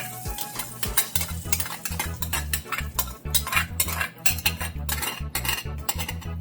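A kitchen utensil stirring and scraping in a cooking vessel: a busy run of quick clicks and scrapes.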